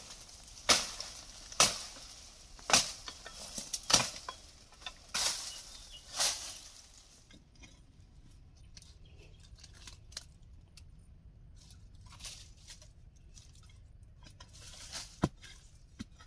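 Digging spade striking into hard soil: about seven sharp strokes roughly once a second, then softer scattered clicks and one more sharp knock near the end.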